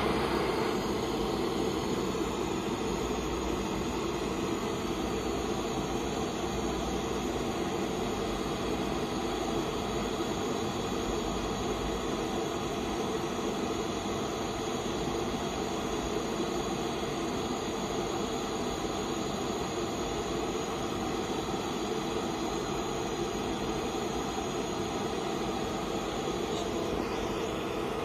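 Gas torch flame burning steadily with an even rushing hiss, held against rock wool insulation in a fire-resistance test.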